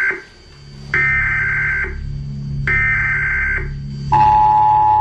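Emergency Alert System tones: the screeching data-header bursts, one ending and then two more about a second each, followed about four seconds in by the steady two-pitch attention tone, over a low droning hum.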